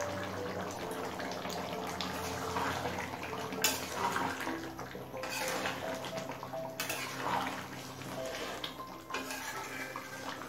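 A thick curry bubbling in a steel kadai while a steel spoon stirs through the gravy, with a few sharp knocks of metal against the pan.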